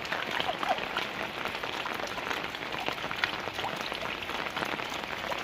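Steady rain falling: a dense, even hiss with many small scattered drop ticks.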